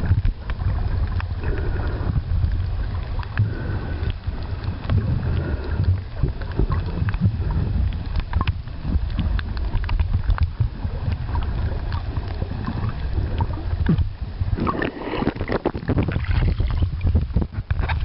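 Water sound picked up by a camera held underwater: a steady low rumble with scattered short clicks and crackles, growing busier for a couple of seconds near the end.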